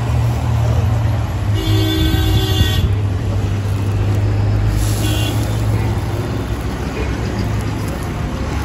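Street traffic with a steady low hum, and a vehicle horn honking for about a second, roughly two seconds in. A shorter, higher beep follows near the middle.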